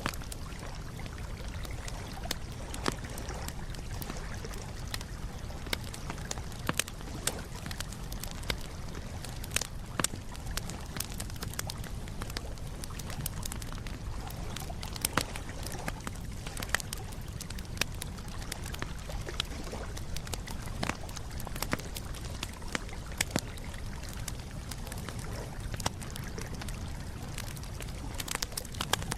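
Wood campfire crackling, with frequent irregular sharp pops over a steady low rumble.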